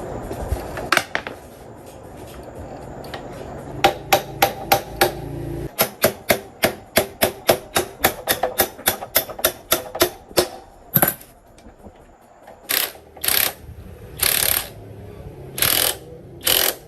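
Workshop tool noise: a fast run of sharp taps or knocks, about three a second, then several short hissing bursts.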